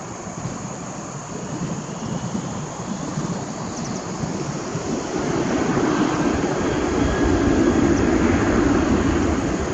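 Tigerair Taiwan Airbus A320-232's twin IAE V2500 turbofan engines spooling up to takeoff thrust as the jet begins its takeoff roll, heard from behind. The noise swells to a loud, steady rumble about halfway through, with a faint whine over it.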